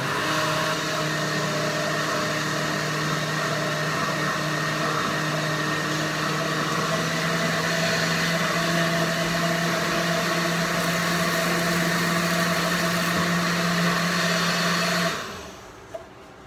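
Countertop blender running steadily as it blends a smoothie, then switched off about fifteen seconds in, the motor winding down quickly.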